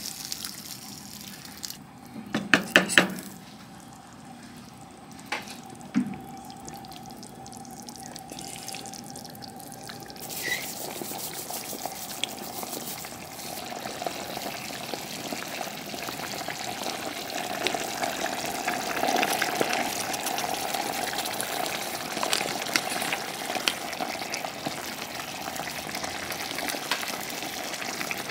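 Kitchen cooking sounds: a few sharp knocks about two to three seconds in, then, from about ten seconds on, a steady hiss with small crackles that slowly grows louder.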